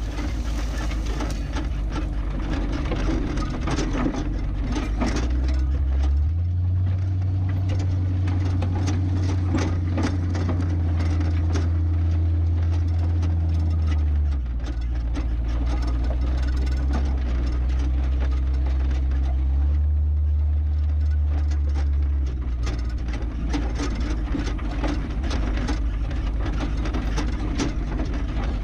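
Tow truck driving over a rough dirt track: its engine running steadily, the engine note stepping up and down a few times as the revs change, over constant rattling and knocking from the bumpy ride.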